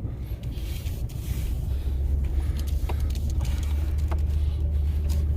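A vehicle's engine and tyres rumbling from inside the cab as it drives off, the low drone growing louder about two seconds in.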